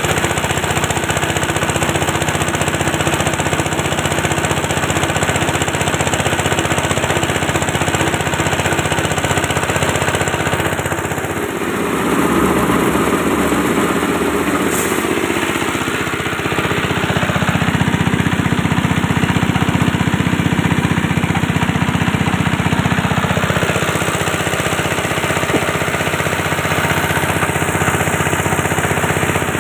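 A multipurpose chopper-grinder driven by a single-cylinder 8.5 hp diesel engine running steadily under load, a continuous loud mechanical clatter and hum. Its sound shifts about a third of the way in and again around the middle.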